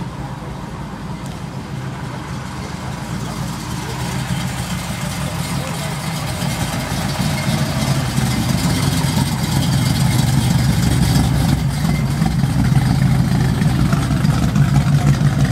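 A 1968 Ford Mustang GT 390's big-block V8 idling through its exhaust, a steady low note that grows louder as the car is approached from the side and rear.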